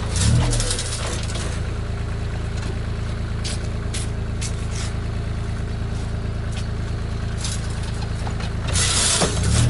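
Compact articulated wheel loader's diesel engine idling steadily, with a few light knocks about halfway through. It is louder in the first second and revs up again shortly before the end.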